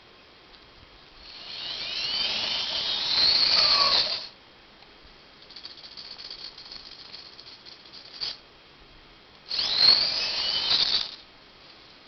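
Small geared DC drive motors of a homemade robot whirring in two bursts of two to three seconds, their pitch sliding up and down as the robot drives and turns. A fainter whir between the bursts, and a single click.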